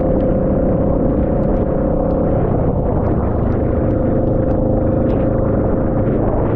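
Vehicle riding through rain: a steady low rumble with a constant mid-pitched hum that fades out for about a second partway through, and light ticks of raindrops.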